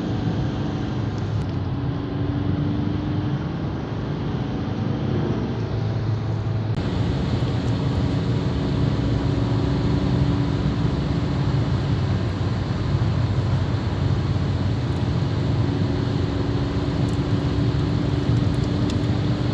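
Skoda Octavia II 1.6 TDI four-cylinder diesel car accelerating, with a steady engine and drivetrain hum. It carries a rattling noise whose cause the owner cannot identify, suspecting the injectors, transmission or an axle.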